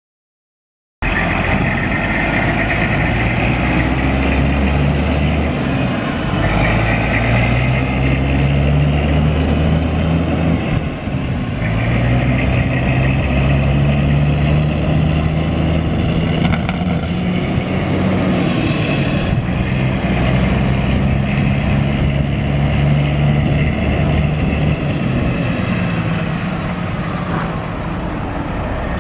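Detroit Diesel Series 60 12.7-litre inline-six diesel engine of a 1996 Peterbilt 379 semi truck, idling steadily. It cuts in suddenly about a second in.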